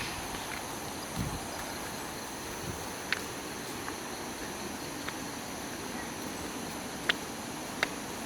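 Steady chorus of insects with a continuous high buzz, broken by a few sharp clicks and a low thump.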